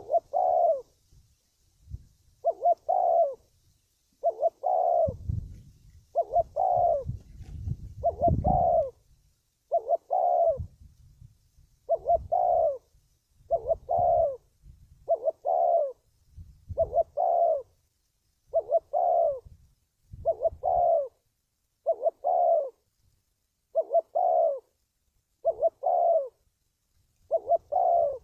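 Spotted dove cooing: the same short phrase repeated steadily, about once every second and a half. A low rumble sits under the calls for a few seconds near the start.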